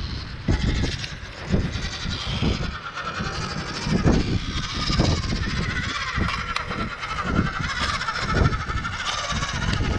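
Electric motor and gears of a 1/16-scale RC rock crawler whining as it climbs over rocks, the pitch wavering with throttle and rising about halfway through. Irregular low thumps of wind buffeting the microphone run underneath and are the loudest sounds.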